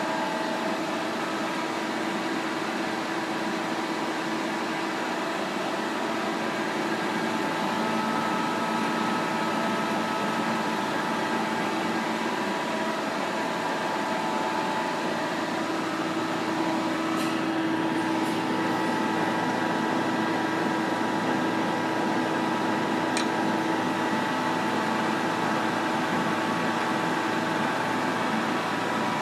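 1993 Pinacho S-90/180 centre lathe running: a steady machine hum with several steady whining tones, and a few brief clicks a little past the middle.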